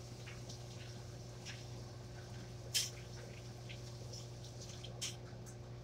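Faint handwashing at a kitchen sink: soft wet rubbing and splashing, with two brief sharp sounds, one about three seconds in and one near the end, over a steady low hum.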